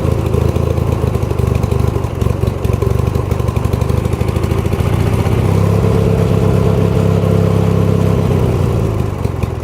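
Ford YT16 riding mower's engine running unevenly as the choke is pushed in, changing speed a couple of times and starting to falter near the end before it dies. It will run only on full choke, which the owner puts down to a carburetor that needs cleaning.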